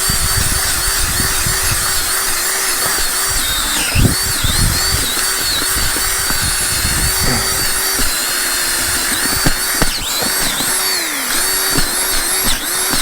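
Power drill boring a hole into muddy ground, its motor running steadily with brief dips in pitch as the bit digs in and loads up, and knocks from the bit in the soil.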